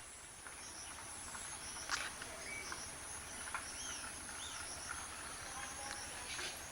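Baya weavers chirping softly: scattered short chirps and a few brief rising-and-falling whistled notes, with one short sharp sound about two seconds in, over a steady thin high hiss.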